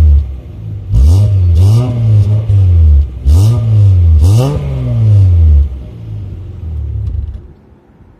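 Mazda MX-3's 1.8-litre V6 heard at the tailpipe through a newly fitted budget aftermarket muffler, blipped about four times, each rev rising quickly and falling back. It then idles steadily and cuts out near the end.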